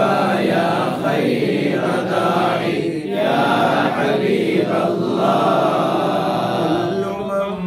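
A group of men chanting an Arabic mawlid poem in praise of the Prophet without instruments. A lead voice reading from a booklet is joined by the others, singing in long, drawn-out notes.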